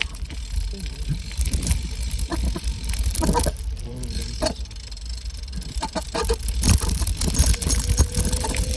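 Bicycle rattling and clicking irregularly while being ridden, over a constant low rumble. A faint steady tone joins near the end.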